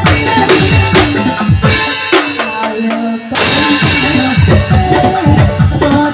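Upbeat gondang-style dance music with a fast drum beat and bass. About two seconds in, the drums and bass drop out, leaving held melody notes, then the full beat crashes back in.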